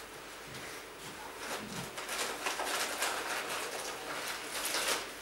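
Rustling and light handling noises, a busy run of soft irregular scrapes and brushes building up after about a second and a half.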